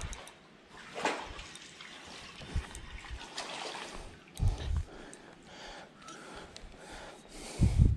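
A hooked crappie splashing at the water's surface as it is reeled in and swung out of the water, with two low thumps, the louder one near the end.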